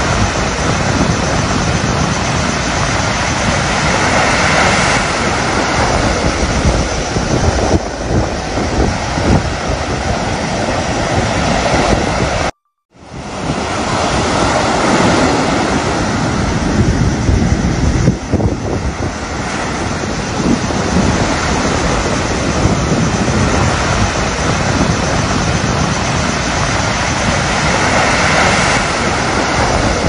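Sea surf breaking and washing up a sandy beach, swelling and easing as each wave comes in, with wind buffeting the microphone. The sound cuts out for an instant about halfway through.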